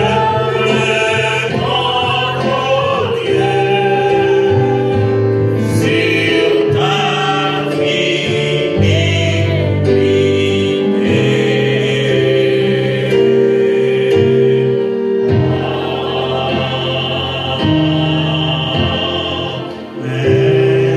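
A hymn sung by a group of voices over instrumental accompaniment in long held chords.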